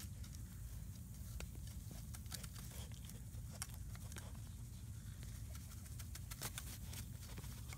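A German Shepherd puppy mouthing and biting a rubber chew stick and moving about on grass: scattered small clicks and rustles, over a low steady rumble.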